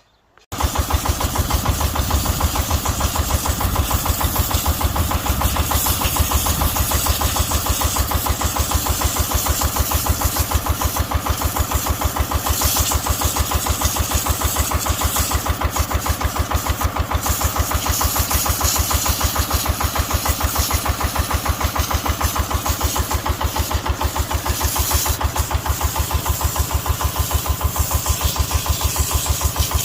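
Excavator diesel engine running steadily with an even, rapid pulsing beat, coming in abruptly about half a second in.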